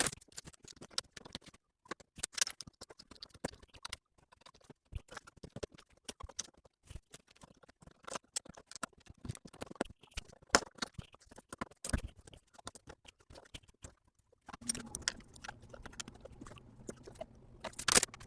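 LEGO bricks and small plastic pieces clicking and rattling in rapid, irregular succession as a polybag set is assembled by hand, with a few sudden breaks. A faint steady hum comes in under the clicking near the end.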